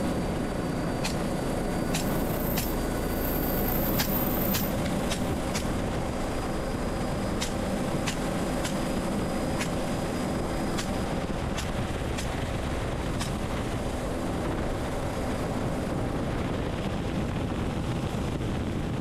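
Bell 407 helicopter running in flight, a steady dense engine and rotor noise. Irregular sharp cracks, roughly once a second, come from AR-15-style rifle shots fired from the aircraft.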